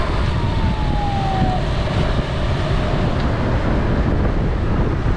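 Steady wind rumble on a moving microphone, mixed with motor scooter traffic riding alongside. A single tone glides slowly downward over the first second and a half.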